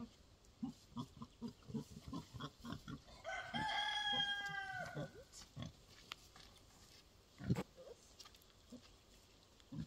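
A rooster crows once, one long call of about a second and a half, over short low grunts from a pig. A single dull thud comes a few seconds later.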